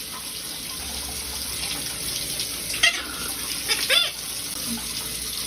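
Steady running water, like a tap, with a few short high squeaks about three and four seconds in.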